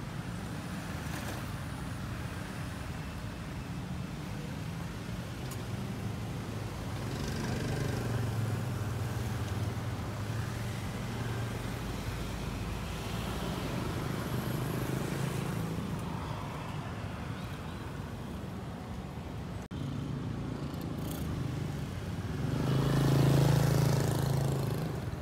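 Road traffic: cars passing on the street, a low engine hum that swells as vehicles go by, loudest near the end.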